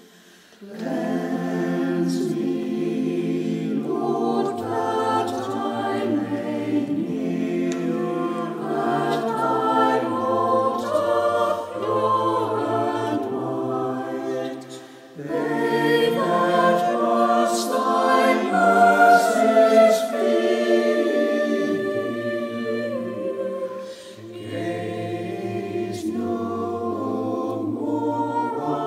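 A church choir singing a hymn or anthem in several parts. It pauses briefly between phrases about fifteen seconds in and again near twenty-four seconds.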